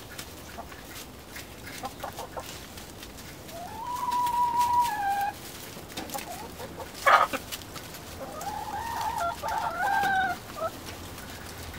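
Backyard hens calling: one drawn-out call about four seconds in that holds its pitch and then drops, a sharp squawk about seven seconds in, and a run of wavering calls near the end, with scattered light clicks between them.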